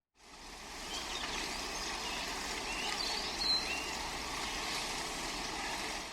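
Steady outdoor rushing noise with a few short, high chirps in the first half.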